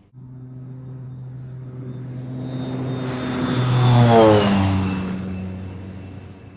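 Propeller airplane flying past: the engine drone cuts in abruptly, swells to its loudest about four seconds in, drops in pitch as it passes, then fades away.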